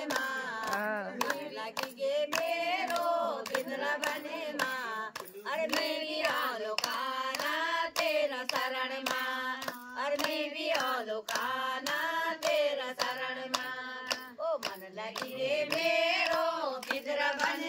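Women's voices singing a Hindu devotional bhajan (kirtan) together, with steady rhythmic hand-clapping keeping time at about two claps a second.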